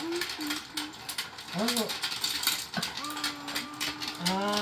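Battery-operated toy fishing game turning, its plastic gear drive clicking and ratcheting rapidly and steadily.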